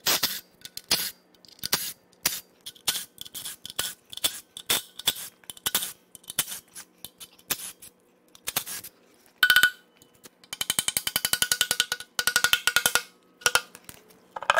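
Hand socket ratchet clicking in short runs while the engine's lower oil pan bolts are backed out, with sharp metallic clinks of tools and parts between. About two-thirds through comes a longer run of fast, even ratchet clicks.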